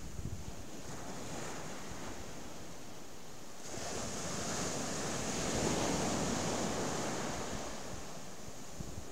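Surf breaking and washing up a sandy beach in stormy weather, swelling a little over a third of the way in, peaking in the middle and easing off near the end. Wind buffets the microphone with a low rumble.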